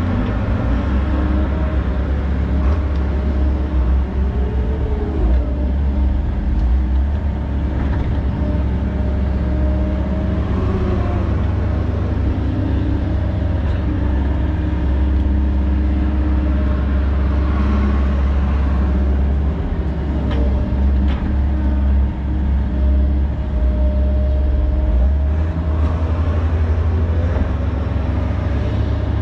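Volvo 140 excavator's diesel engine running steadily under load, with the pitch rising and falling now and then as the hydraulics work digging mud.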